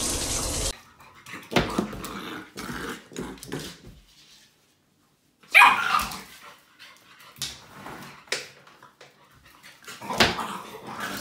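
A shower tap running briefly at the start, then a dog barking in short, scattered bursts, the loudest a little over halfway through.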